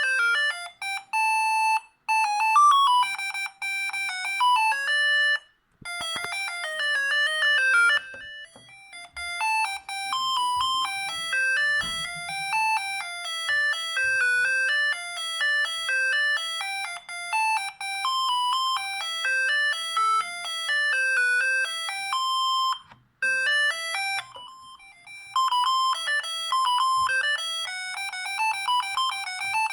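Siemens S45 mobile phone playing its ringtone melodies through its small speaker: bright electronic beeps, one note at a time, stepping quickly up and down. The tune changes at short breaks about six, eight and twenty-three seconds in, and a few faint low knocks sound between about ten and twelve seconds.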